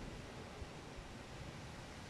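Storm wind making a faint, steady rushing hiss with a low rumble underneath.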